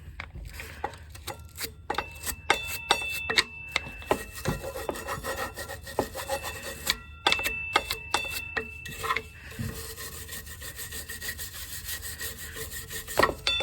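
A stiff nylon brush scrubbing a motorcycle's rear brake caliper in quick back-and-forth strokes, with bristles rasping on the metal.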